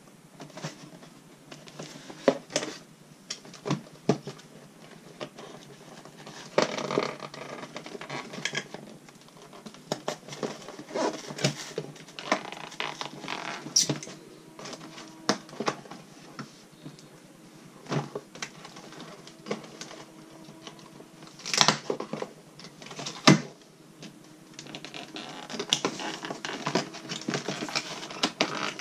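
Cardboard box and a plastic salt gun being handled during unboxing: irregular knocks, scrapes, taps and rustling, with a few sharper knocks about 22 and 23 seconds in.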